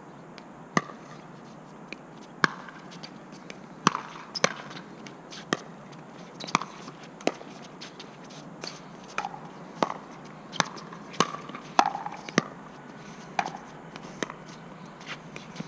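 Pickleball paddles striking a plastic ball in a doubles rally: a string of sharp pocks, unevenly spaced about every half second to a second, with fainter ticks between them.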